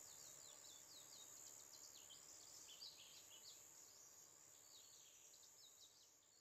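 Faint outdoor ambience with small birds chirping: many short, quick falling notes, fading out near the end.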